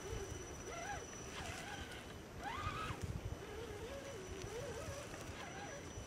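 Electric motors and gearboxes of scale RC crawler trucks whining as they crawl over rough forest ground. The pitch wavers and swells up and down with the throttle, loudest in a rising-and-falling sweep near the middle. A faint steady high whistle sits over it.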